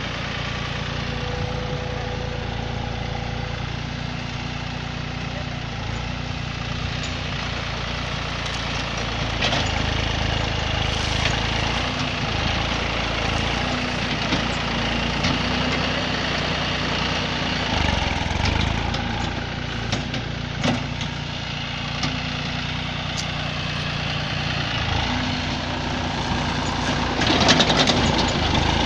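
Massey Ferguson 9500 Smart tractor's diesel engine running steadily, getting somewhat louder from about nine seconds in and again near the end, with a few short knocks.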